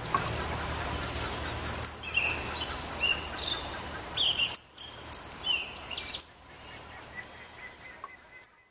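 A bird singing short, repeated chirping phrases about a second apart over a background of outdoor countryside ambience. The sound fades out in steps over the last few seconds.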